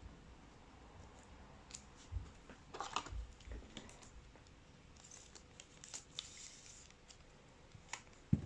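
Trading cards and packs being handled on a table: faint rustling and scattered light clicks, busiest about three seconds in, with a sharp tap near the end.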